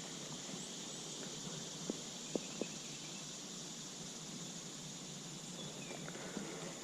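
Quiet outdoor ambience on the water: a steady high hiss, with three small sharp clicks about two seconds in.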